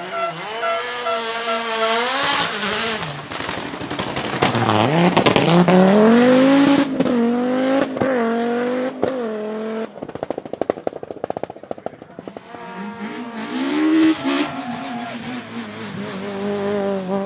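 Rally car engine revving hard, its pitch climbing and dropping repeatedly with the gear changes. About ten seconds in, the exhaust gives a rapid crackle of pops for about two seconds, then the engine picks up and climbs again.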